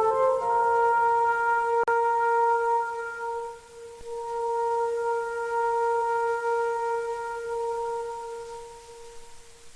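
Background music ending on a long held chord in a wind-instrument tone, fading out over the last few seconds, with a brief click about two seconds in.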